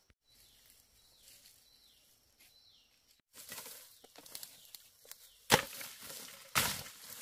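Machete chopping through brush and bamboo: two sharp, loud strikes about a second apart in the second half, with rustling of vegetation around them. Before that, a few seconds of faint quiet with a light, repeating high chirp.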